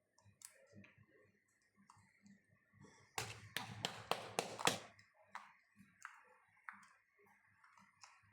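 Hands working homemade soap-and-clay slime, making faint scattered clicks and then a quick run of louder sticky clicks and pops about three to five seconds in.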